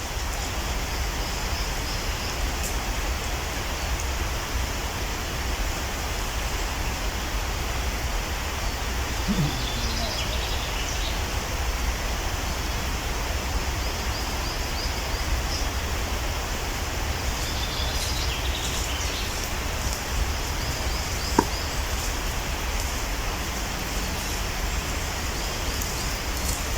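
Steady outdoor background noise with a low rumble, and a few faint high chirps about ten seconds in and again near eighteen seconds.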